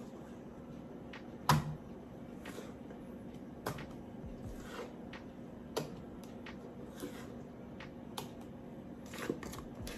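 Cake batter being scooped from a stainless steel mixing bowl into round baking pans: scattered soft taps and scrapes against the metal, the loudest about a second and a half in, over a faint steady hum.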